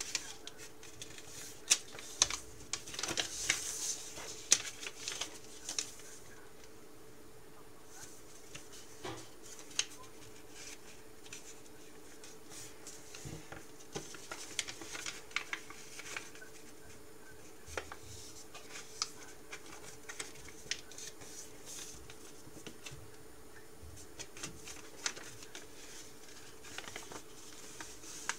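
A square sheet of origami paper being folded and creased by hand: scattered crisp paper crackles and rustles with light taps of fingers on the tabletop, busiest in the first few seconds and sparser after.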